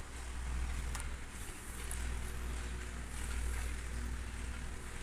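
A 60-inch Khind CF60 industrial ceiling fan running, giving a steady low rumble of motor and moving air.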